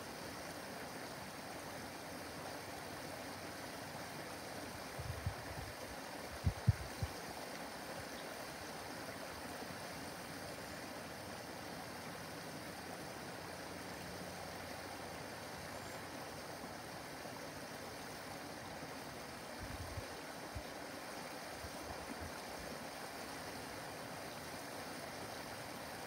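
A small backyard waterfall running steadily over rocks into a pond, making an even rush of water. A few brief low thumps come about five to seven seconds in and again faintly around twenty seconds.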